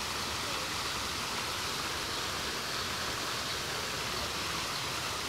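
Steady rushing of a waterfall pouring into a pond.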